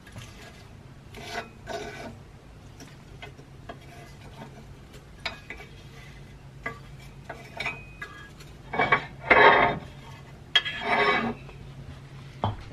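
Steel chips being brushed by hand off a drill press table and a flat steel bar: short bouts of scraping and rubbing with scattered light ticks of loose chips, the loudest bouts about two thirds of the way in.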